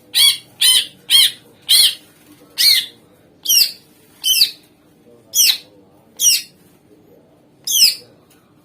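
Green leafbird (cucak ijo) calling: a series of about ten loud, harsh, rich call notes, about two a second at first, then more widely spaced.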